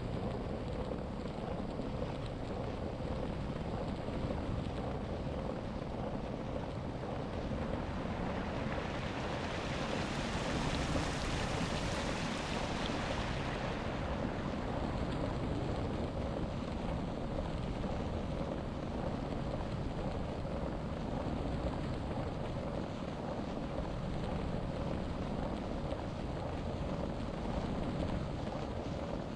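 Steady wind noise buffeting the microphone over a low rumble. A hiss swells and fades again between about eight and fourteen seconds in.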